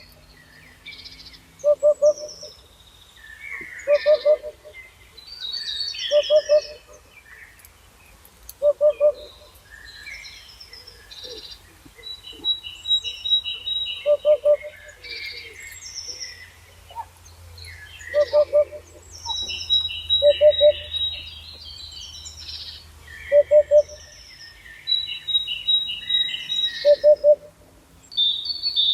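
Birdsong: a low hooting call of two or three short notes repeated about every two seconds, with several songbirds chirping and whistling higher above it. One of them has a rapid, even trill that comes three times.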